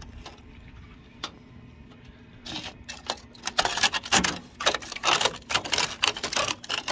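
Rusted sheet steel of a Ford Cortina Mk4's bulkhead crackling and snapping as fingers pick at it and break the corroded flakes away: a single click about a second in, then a dense, irregular run of crackling clicks from about two and a half seconds in.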